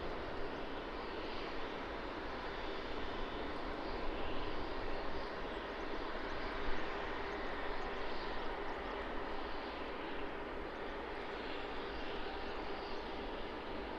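Airliner's jet engines, a steady, even noise with no clear rise or fall.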